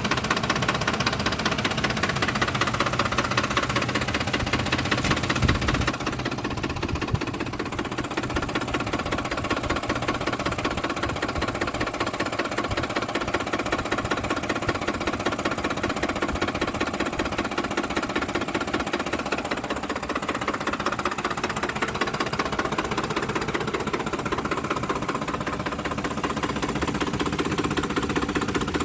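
2007 Ford F-150's 5.4-litre V8 idling roughly after deceleration, with a fast, even knocking rattle running through it. The owner places the noise down near the fan, louder on one side.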